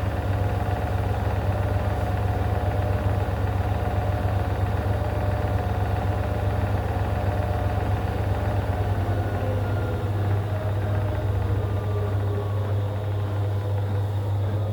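AEG washing machine spinning: a steady motor hum with a drone and a whine over it. About two-thirds of the way through, the tones begin to fall in pitch as the drum starts slowing.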